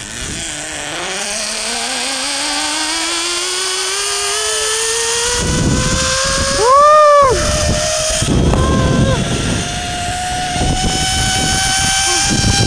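Zipline trolley pulleys whining along the cable, the pitch climbing steadily as the rider gathers speed. Wind rushes over the microphone from about halfway. About seven seconds in comes one loud rising-and-falling yell.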